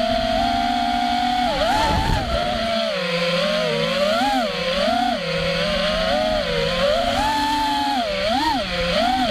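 Armattan Rooster FPV racing quadcopter's motors and propellers whining in flight, the pitch swooping up and down again and again with the throttle.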